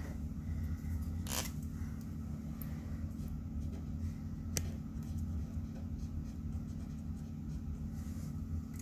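Felt-tip marker writing on paper, with a faint scratchy scraping and two short sharp clicks. A steady low hum runs underneath.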